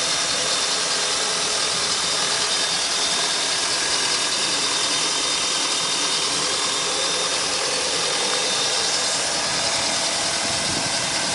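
MerCruiser 350 Magnum EFI, a fuel-injected V8 marine inboard, running steadily with no change in speed, heard up close at the open engine compartment.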